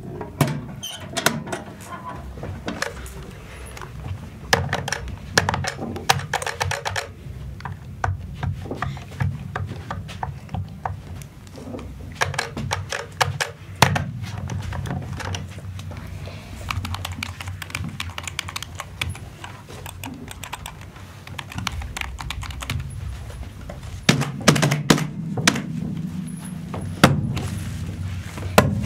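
Typing on a computer keyboard: irregular runs of key clicks and knocks over a steady low hum, with a louder cluster of knocks about three-quarters of the way through.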